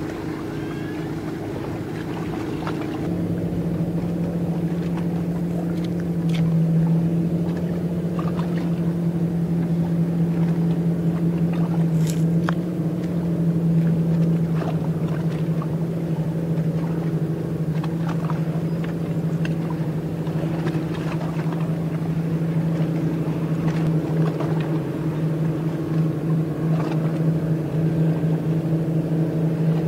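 A boat's engine running with a steady, even drone that grows louder about three seconds in.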